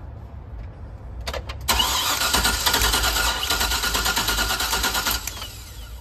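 A 5.3 L LS V8 cranking on its starter with the loud, rapid crackle of spark arcing, lasting about three seconds from about two seconds in. The arcing shows the ignition is delivering spark, yet the engine does not start.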